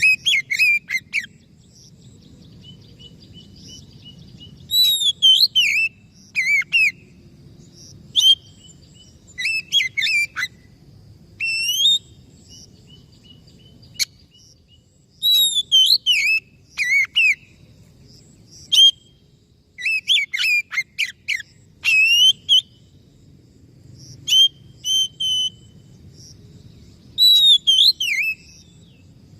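Oriental magpie-robin (kacer) singing: short, loud phrases of whistles and rapid chirps, repeating every second or two with brief pauses between, over a faint low hum.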